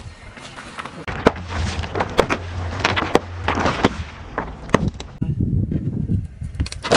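Car tyre rolling over and crushing objects on asphalt: a run of sharp cracks and crackles over a low engine hum, thinning to a few quieter clicks near the end.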